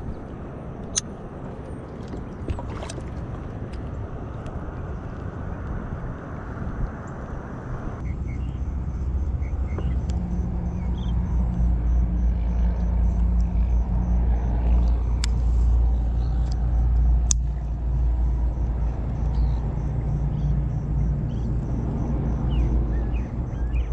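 Low motor-vehicle engine rumble that comes up about eight seconds in and holds steady, with a few sharp clicks over it.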